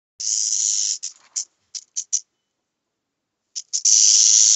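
Rattlesnake shaking its tail rattle as a defensive warning: a high buzz lasting most of a second, then several short buzzes, a pause of about a second, and a continuous buzz starting near the end.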